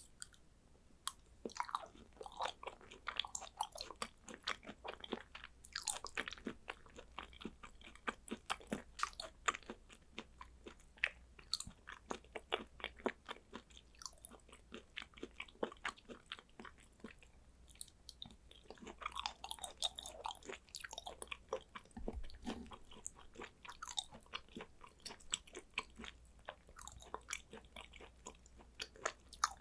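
Close-miked chewing of thinly sliced raw hanwoo beef: a steady stream of small mouth clicks and smacks.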